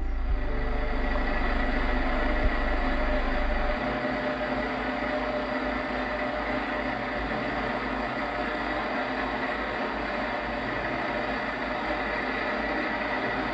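Heavy diesel engine idling steadily, with a low rumble that turns into an even low pulsing about four seconds in.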